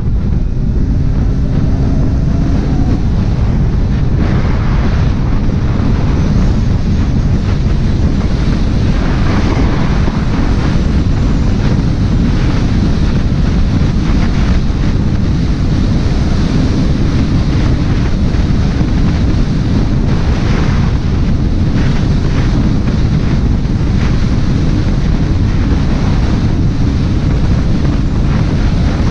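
Loud, steady wind buffeting the microphone, a continuous low rumble and rush with no breaks.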